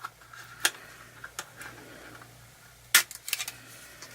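Handling of a plastic smartphone and its removable back cover: a few sharp plastic clicks and taps, the loudest about three seconds in, followed by several lighter ones.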